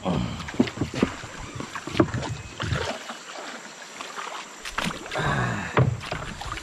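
Knocks on a wooden boat's hull and splashing in shallow water as someone steps out of the boat onto a stony riverbed. The knocks come in two clusters, one in the first three seconds and another about five seconds in, with a brief lull between.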